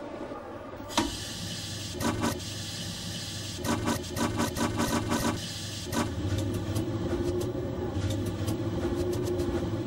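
Locomotive cab sounds: a sharp click about a second in and a few more clicks as the driving controller lever is worked, with a quick run of even pulses. From about six seconds a steady machine hum sets in.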